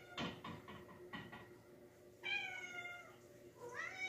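Domestic cat meowing twice: one long meow about two seconds in and a shorter rising one near the end, after a few light knocks.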